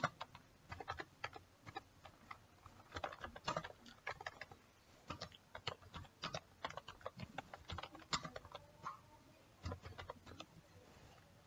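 Computer keyboard typing: faint, irregular runs of keystrokes, with a short pause near the end.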